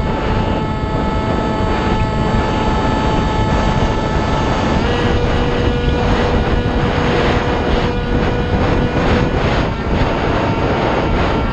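Onboard sound of a Multiplex Shark RC plane in flight: the electric motor's steady whine under loud, rushing wind noise on the strapped-on camera. The whine's pitch changes about five seconds in.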